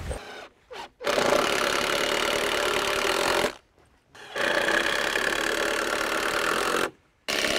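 Cordless impact driver driving 3-inch structural screws into wooden blocking between deck joists. There are two runs of about two and a half seconds each, separated by a short silence, and a third begins near the end.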